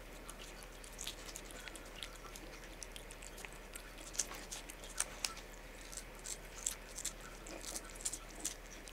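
A cat licking and chewing paste from a squeeze-tube treat held to its mouth: irregular wet lapping and smacking clicks, several a second.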